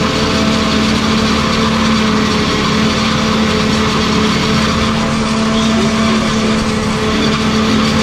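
CLAAS forage harvester running steadily under load while chopping flattened maize, with the tractor running alongside it: a loud, even machine noise with a constant hum.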